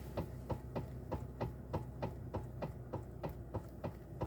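Rapid, regular knocking from the steering column of a Toyota Avalon as the steering wheel is turned, about four knocks a second, over the steady hum of the idling engine. It is the sign of a worn electric power steering damper (coupler, part 45254-28040).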